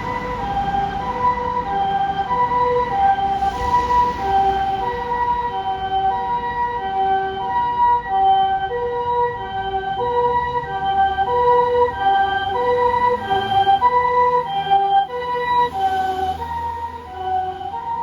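Japanese ambulance's electronic two-tone "pee-po" siren, alternating steadily between a high and a low note about every 0.6 seconds. A vehicle's engine rumble grows under it near the end.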